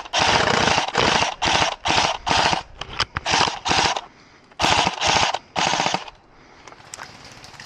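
Airsoft electric rifle firing a rapid string of short full-auto bursts, about a dozen of them, each a few tenths of a second long. The firing stops about six seconds in.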